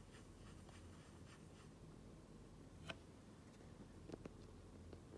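Near silence: room tone, with a few faint short clicks, the clearest about three seconds in.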